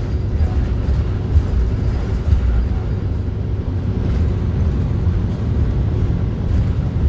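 Steady low rumble of a city bus's engine and running gear, heard from inside while the bus drives, with two brief knocks about a second and a half and two and a half seconds in.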